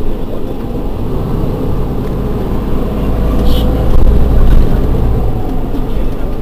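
Mercedes-Benz Citaro G C2 articulated bus's OM 470 straight-six diesel engine idling at a standstill with its doors open, a steady low rumble.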